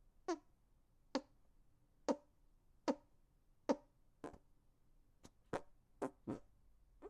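Fake fart sounds made with the hands: a string of short, buzzy squelches, about one a second at first, then coming faster in pairs in the second half.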